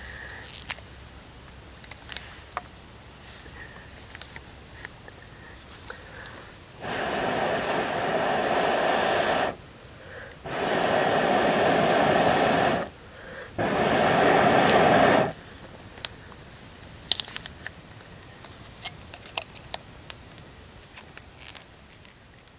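Three long breaths blown through a metal blow tube onto smouldering embers to raise flames, each a rushing hiss lasting two to three seconds with short gaps between. Scattered small clicks and ticks come before and after.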